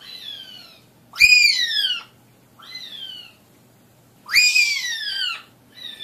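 African grey parrot giving a run of five meow-like whistled calls, each rising briefly and then sliding down in pitch. They alternate louder and softer, about one every second and a half.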